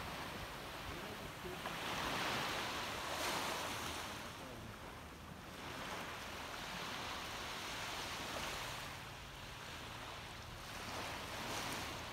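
Small waves lapping on a sand beach in calm water, each washing up the shore and drawing back. The wash swells every few seconds, and is strongest about two to three seconds in.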